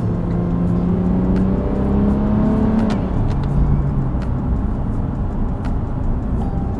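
2019 Nissan 370Z Nismo's 3.7-litre V6 pulling gently under light throttle, its note rising slowly, then dropping about three seconds in as the seven-speed automatic shifts up, and running steady after, over tyre and road noise.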